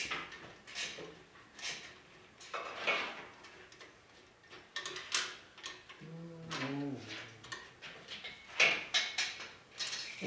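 Irregular metal clinks, knocks and scrapes as a Harley-Davidson touring bike's chrome muffler is slid onto its mount and the mounting hardware is worked by hand.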